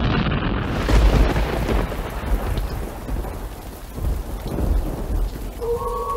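Thunderstorm sound effect: rolling thunder over steady rain, with the heaviest rumbles about a second in and again around four and a half seconds. Near the end a steady high tone sets in.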